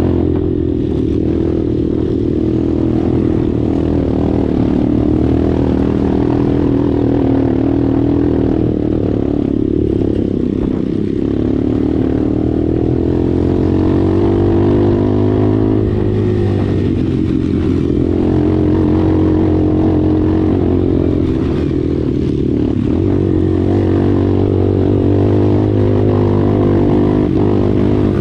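Dirt bike engine running steadily under load on an uphill dirt trail, its pitch rising and falling gently with the throttle.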